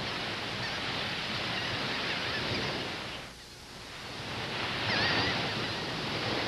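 Ocean surf washing in waves: the noise swells, falls away about three seconds in, and builds again as the next wave comes in. Faint high wavering tones sound over it twice.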